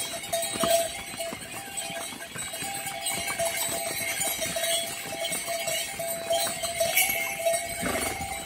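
Bells on mules' neck collars ringing and jingling steadily as the mules walk, with short knocks of hooves on stone paving.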